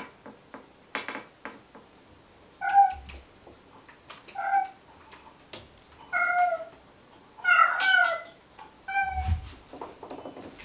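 A cat meowing repeatedly: about five short meows every one and a half to two seconds, one of them longer and bending in pitch. A dull low thump comes about nine seconds in.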